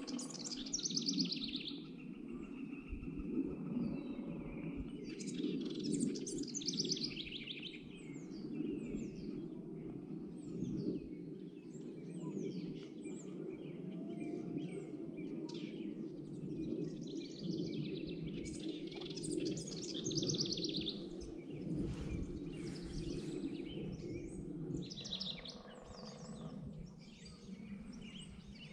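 Wild songbirds singing: fast, high trills that come and go every few seconds, with scattered down-slurred chirps between them, over a steady low background rumble.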